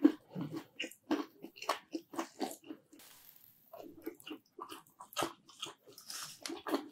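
Hard pizza crust edge crunching as it is bitten and chewed, a quick run of crisp crunches with a short pause about halfway. The crust is hard enough to sound almost like a crunchy cracker snack.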